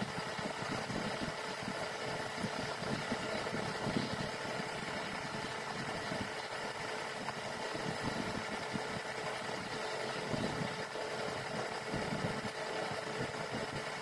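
Steady hum of a running motor, holding several faint steady tones, unchanging throughout.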